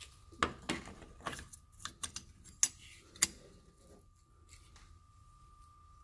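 Small metal deadbolt parts clicking and clinking as they are handled and fitted into the door's bore hole. There are several sharp clicks in the first three seconds or so, then it goes quiet.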